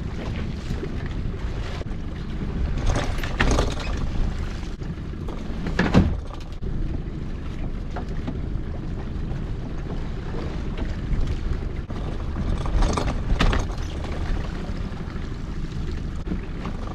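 A string of lobster pots hauled up by hand over the side of a small boat: steady low rumble of wind and the boat, with a few short knocks and splashes, the loudest about six seconds in.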